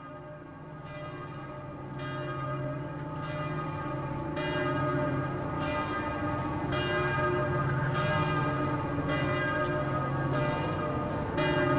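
Bells ringing, a new stroke about once a second, several tones ringing on together and growing gradually louder.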